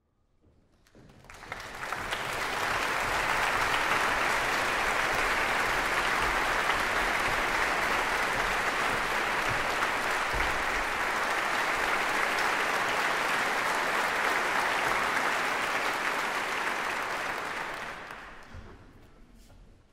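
A concert-hall audience applauding. It swells in over the first couple of seconds, holds steady, then dies away near the end.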